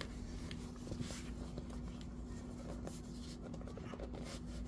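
Hands handling a leather watch case as the watch is drawn out, leather and fabric rubbing and scuffing with a few small clicks in the first second, over a steady low hum.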